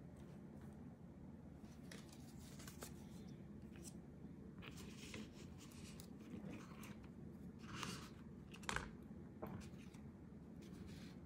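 Faint rustling and light taps of paper cards and small accessories being handled and set down on a tabletop, with one sharper tap about three-quarters of the way through, over a low steady hum.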